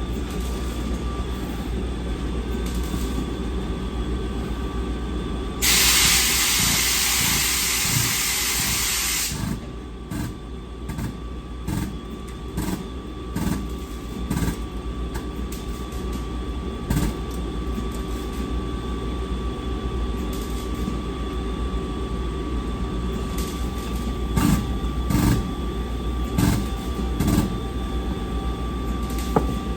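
Mechanic's work on a vehicle's rear end: a steady low hum under everything, then a hiss about four seconds long, followed by scattered short knocks of tools and parts being handled.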